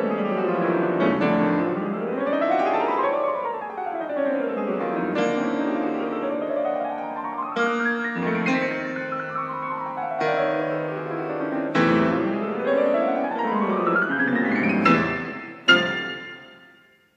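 Solo piano playing rapid chromatic scale runs, sweeping up and down the keyboard in both hands, building to two loud fortissimo chords near the end that ring off into silence.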